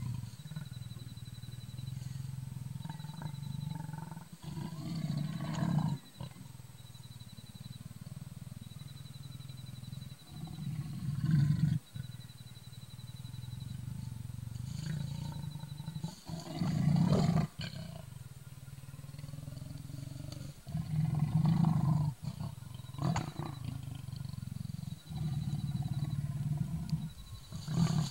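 A male leopard growls continuously in low, rough tones at its reflection in a mirror. Louder growling outbursts come roughly every five or six seconds.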